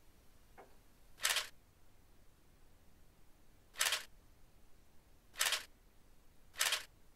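A single-lens reflex camera's shutter firing four times, each a short sharp click, unevenly spaced. A faint tick comes just before the first.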